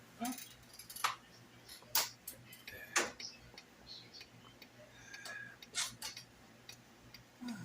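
An onion being peeled by hand: scattered sharp clicks and light crackles, roughly one a second, with faint rustling between them.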